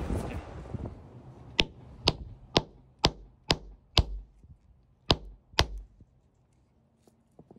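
A hammer striking a rounded beach pebble held on hard ground to crack it open. There are six sharp blows at about two a second, a short pause, then two more.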